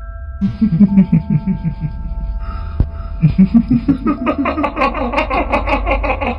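Kuntilanak ghost laugh sound effect: a rapid pulsing laugh, deeper at first and from about four seconds in a fast, high-pitched 'hihihi' cackle. Under it runs a low rumbling drone with a few held tones.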